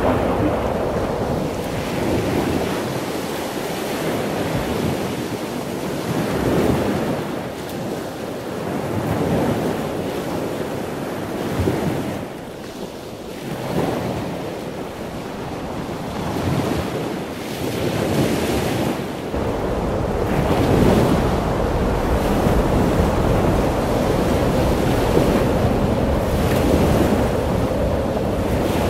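Ocean surf breaking and washing in, swelling and easing every few seconds. Wind rumbles on the microphone, stronger in the second half.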